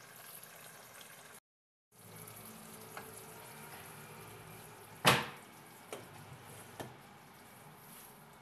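A heavy cooking pot of roast chicken is lifted off the gas stove and set down on a wooden board with one sharp knock about five seconds in, with a few lighter clunks of the pot and handle around it. A faint steady sizzle-like hiss runs underneath.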